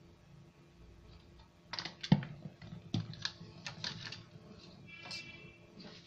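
A plastic bottle with chopped garlic in it being handled and set on a stone countertop: a quick run of light clicks and taps, with two louder knocks about two and three seconds in.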